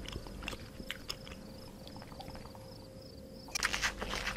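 Scattered soft clicks over a faint steady background hum. About three and a half seconds in, zebras begin chewing and tearing at hay, a dense run of crunching clicks.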